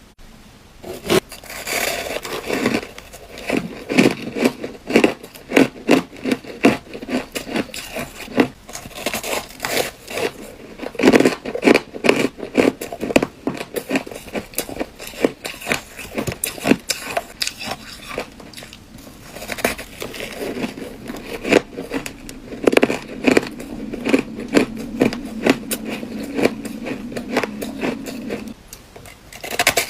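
Close-up crunching of ice being bitten and chewed: a dense, irregular run of sharp cracks and crunches, with short pauses between bites.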